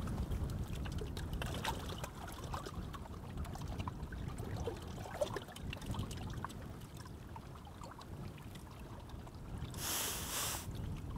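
Small waves lapping and trickling at the water's edge, with wind rumbling on the microphone. A short hissing rush about ten seconds in.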